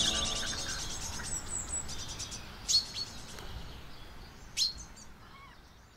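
Songbirds chirping. Quick, high twittering is followed by two sharp, downward-sweeping chirps, about a third and three quarters of the way through, and the whole sound gradually fades away.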